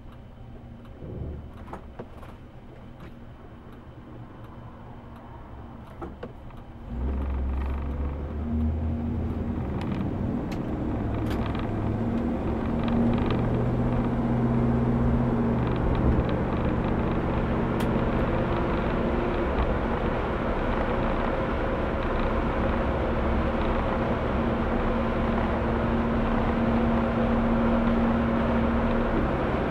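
A few light clicks, then about seven seconds in the sound of the Impala's original 327 Turbo-Fire V8 comes up sharply and keeps running as the car drives off, heard from inside the cabin with road noise, slowly building.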